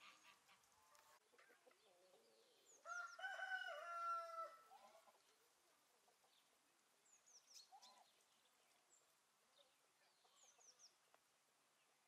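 A rooster crows once, starting about three seconds in, in a single call of about two seconds. A few faint, high bird chirps come later.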